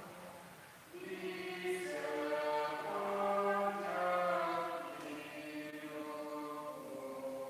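Closing hymn sung by a choir, in slow, sustained phrases, with a new phrase starting about a second in.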